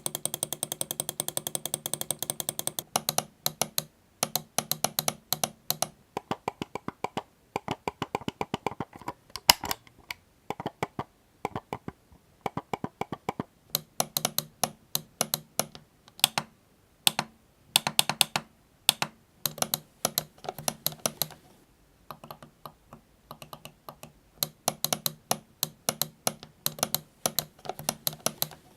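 Computer mouse buttons clicked rapidly over and over, in runs of many clicks a few seconds long with short pauses between the runs.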